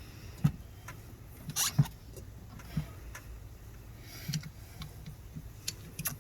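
A few scattered clicks and knocks from a hand-held hydraulic lug crimper and a copper cable lug being handled, the loudest about a second and a half in, over a low steady hum.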